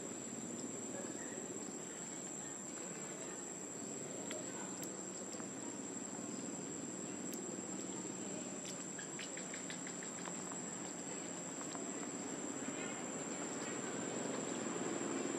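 Steady, unbroken high-pitched drone of insects, over a low background rumble that grows louder near the end.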